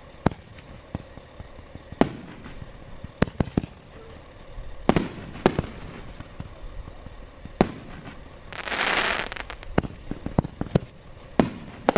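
Aerial fireworks bursting overhead: a string of sharp bangs at irregular spacing, some close together, with a hissing rush of about a second near the end.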